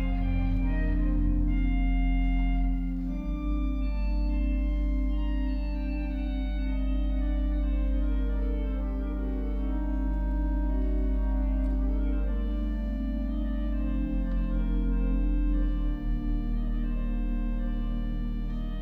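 Orgelbau Kuhn pipe organ played in an improvisation: deep sustained pedal notes under held chords, with the upper voices moving from note to note. The bass shifts pitch a few times.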